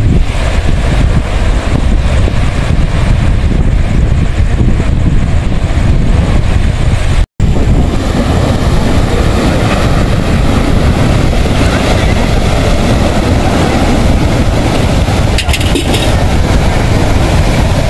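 Wind buffeting the microphone over surf breaking on a rocky shore: a loud, steady rushing with a heavy low rumble. It drops out for an instant about seven seconds in.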